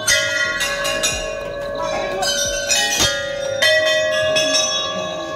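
Hanging brass temple bells at a Hindu shrine entrance rung by hand, struck several times one after another, each strike ringing on with a sustained, overtone-rich tone.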